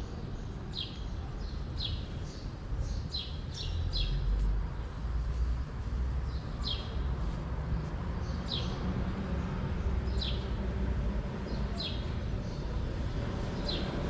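Small birds chirping: short, sharp chirps that slide downward, about a dozen of them a second or two apart, over a low steady rumble.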